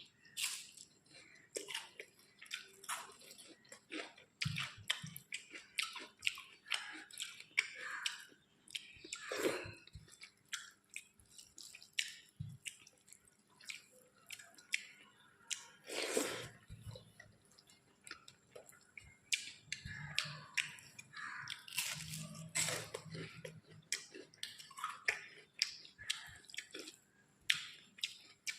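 Close-miked eating: wet chewing and lip smacks of mouthfuls of rice with dal and curry, with many short clicky smacks at an irregular pace.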